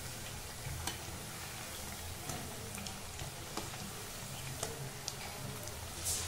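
Sabudana vadas deep-frying in hot oil in a metal kadhai: a steady sizzle, with a few light metal clicks as a spoon and skimmer turn them in the pan.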